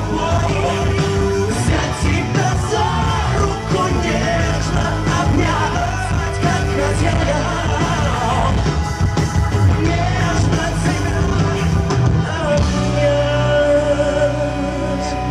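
Male pop singer singing live with a band and keyboards through the PA, heard loud from the audience in a concert hall. Near the end the beat drops away and the band holds long sustained chords.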